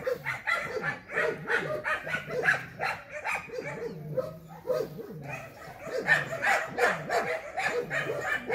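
German Shepherd barking in a fast, unbroken run of short barks, about three a second.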